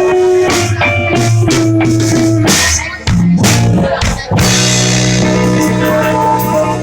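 Rock music with a drum kit and guitar.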